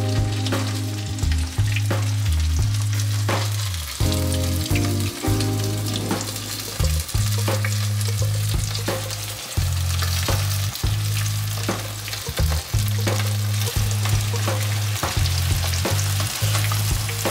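Oil sizzling and crackling as breaded sole fillets fry in a pan, over background music with a steady bass line.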